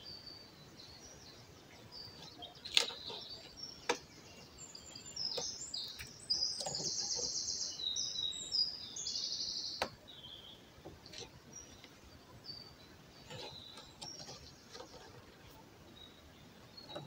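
Songbirds singing in woodland, with a fast, dense song of repeated high notes from about five to ten seconds in. A few brief sharp clicks and rustles from jute twine being handled and wound close by.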